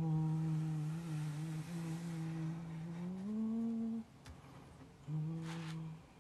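A woman humming long held notes with her mouth closed, the pitch stepping up about three seconds in; after a short break she hums another held note. A brief hiss sounds near the end.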